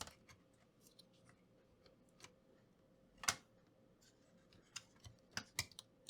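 Faint scattered clicks and light taps of small tools and laptop parts being handled on a workbench, with one sharper click about three seconds in and a quick run of clicks near the end.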